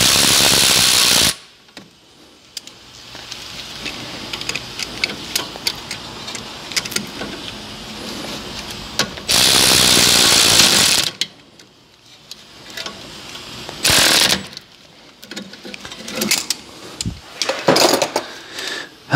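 Cordless impact wrench running a brake caliper bolt in, in three bursts: one at the start lasting over a second, another of nearly two seconds about halfway, and a short one a few seconds later. Between the bursts there are lighter clicks and rattles of the socket and the tool being handled.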